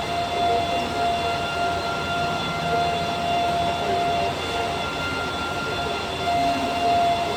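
Bacci T4MO CNC Plus wood-machining centre running, with a steady high electro-spindle whine over a broad machining noise. The whine weakens for a second or two past the middle, then returns.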